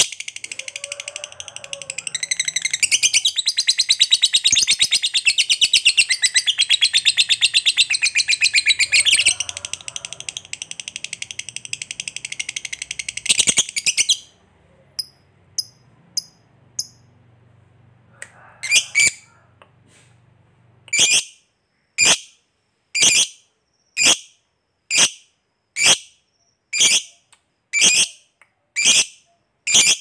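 Lovebird singing a long chattering trill ("ngekek panjang"), a rapid high-pitched run of about fourteen seconds. After it come scattered short chirps, and from about twenty seconds in, single sharp chirps at an even pace of about one a second.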